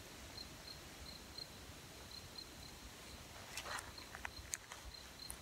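Faint outdoor quiet with an insect chirping steadily, a high note pulsing a few times a second. A little past halfway comes a brief rustle and a few sharp clicks from the handheld camera being handled.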